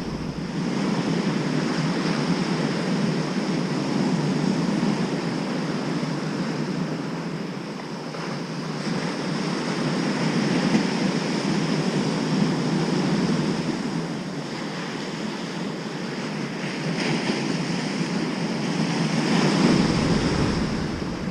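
Heavy surf breaking on a sandy shore, a steady wash of noise that swells and eases over several seconds as each wave comes in.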